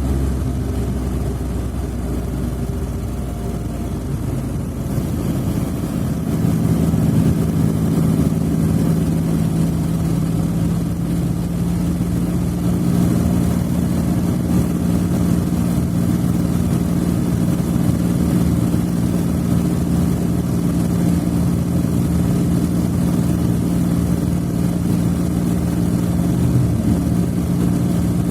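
Smart fortwo (451) engine running steadily; about six seconds in its note steps up to a higher, louder steady speed and holds there.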